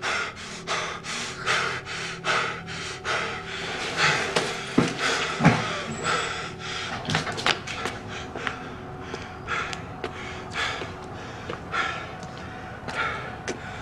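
A person breathing hard in quick, noisy pants, about three breaths a second at first, then slower and more uneven.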